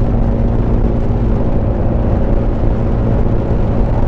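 Yamaha Smash underbone motorcycle's single-cylinder four-stroke engine running steadily under load on an uphill climb.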